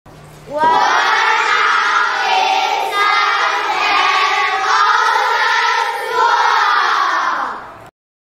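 A group of children's voices raised together in unison in long held phrases. It starts about half a second in and cuts off abruptly near the end.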